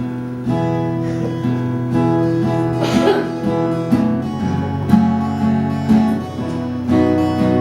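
Acoustic guitar strumming chords in a steady rhythm, playing the instrumental introduction to a folk song before the singing begins.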